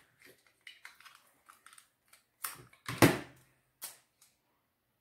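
Double-sided tape being handled: small crackles and clicks, then two louder sharp noises about two and a half and three seconds in, and a shorter one just before four seconds.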